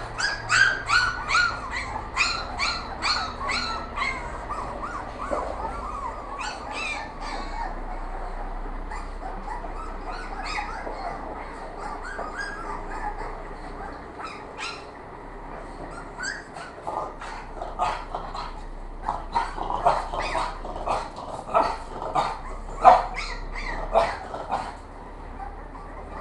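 Puppies yelping and whining in many short, high-pitched calls that fall in pitch. The calls come in quick runs at the start and again in the second half, with a quieter stretch in between.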